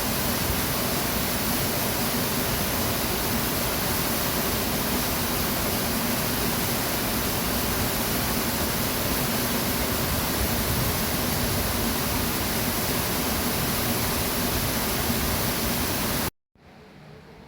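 Waterfall's steady, loud rush of falling water that cuts off suddenly near the end, leaving a much quieter background.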